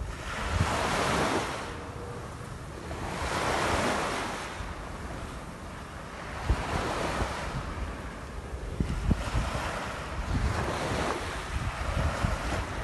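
Sea waves breaking and washing up the shore, the rush of surf swelling and fading every few seconds, with wind buffeting the phone's microphone.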